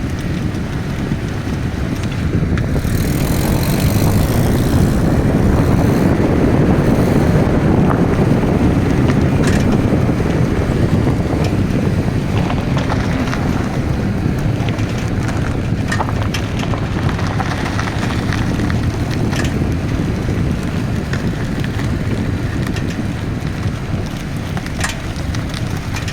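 A 2000 Honda Civic running or being driven: a steady low rumble that swells a few seconds in and then eases off, with scattered light clicks on top.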